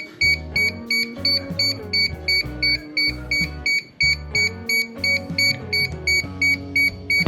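Background music with a steady beat of about three pulses a second over stepping bass notes.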